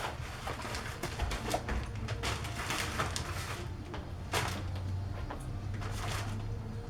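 Cardboard packaging and zip-tied BMX bike parts being handled and cut free: scattered scrapes, rustles and clicks over a low steady hum.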